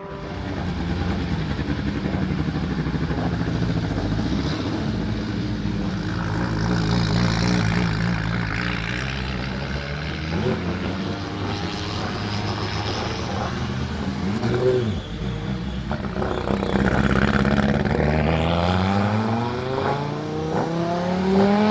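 Audi 200 Quattro Trans-Am's turbocharged five-cylinder engine running hard, with two short blips in revs in the middle and revs climbing steadily near the end as the car accelerates.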